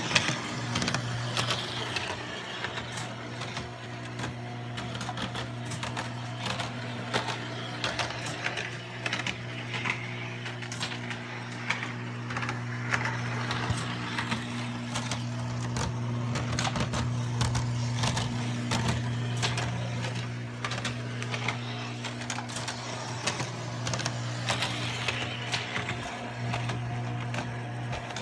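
Lionel prewar 616 Flying Yankee O gauge tinplate train running on three-rail track: a steady electric hum with a constant stream of clicks and rattles from the wheels and sliding pickup shoes on the rails.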